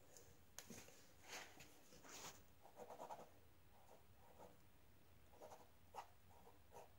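Faint scratching of a ballpoint pen on lined notebook paper as letters are written in short strokes, with a few light ticks of the pen tip.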